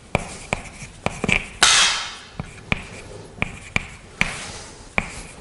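Chalk writing on a blackboard: a string of sharp, irregular taps as the chalk strikes the board, with one longer scratchy stroke about a second and a half in.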